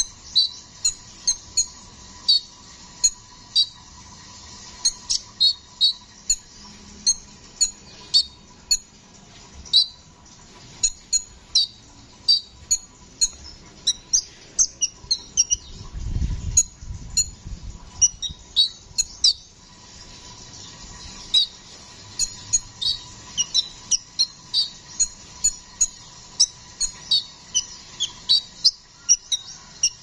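Copper-throated sunbird (kolibri ninja) singing a rapid, continuous string of short, sharp, high chirps, two to three a second, with a brief low rumble about halfway through.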